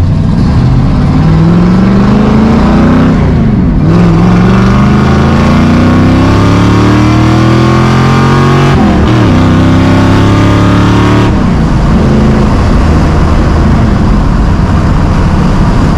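1965 Ford Mustang Fastback engine accelerating hard at wide open throttle, climbing in revs through three gears, with two shifts. About eleven seconds in it eases off to a steady cruise. The owner thinks it is running a little too rich at wide open throttle.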